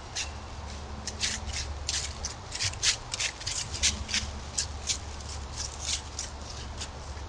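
Dry leaf litter crunching and rustling in irregular bursts, two or three a second, as an animal moves through it; the crunching thins out near the end. A steady low hum runs underneath.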